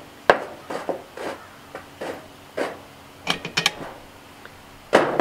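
Metal tongs scraping and clinking charcoal briquettes into place under a cast-iron camp Dutch oven: scattered short scrapes and clicks, with a louder clatter near the end.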